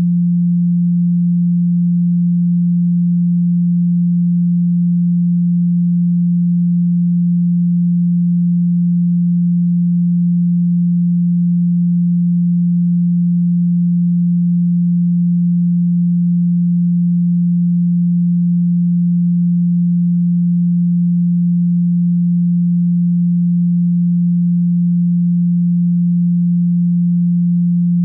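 A single steady low tone at 174 Hz, a Solfeggio frequency, held at an even level without any change.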